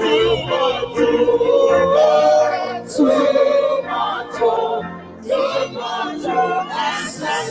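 Church praise team singing together as a choir over instrumental backing.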